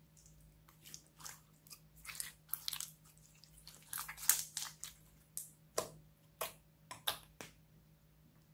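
Clear slime full of glitter flakes being squeezed and stretched by hand, giving a string of irregular sticky crackles and pops. They are busiest in the middle and stop about a second before the end.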